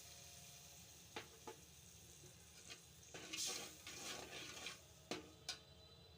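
Kitchen utensil knocking against a cooking pot a few times, with a second or so of stirring and scraping in the pot about halfway through.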